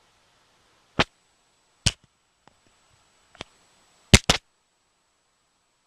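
Five sharp clicks: single ones about one and two seconds in, a fainter one near three and a half seconds, and a close pair just past four seconds.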